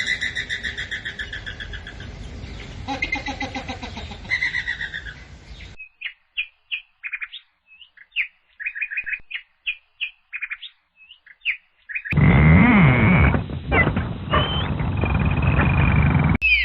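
Birds calling, in several separate short recordings one after another. First rapid repeated chirps for about six seconds, then sparse separate chirps with silence between, then, from about twelve seconds, a louder, noisier stretch with low sliding tones under the chirps.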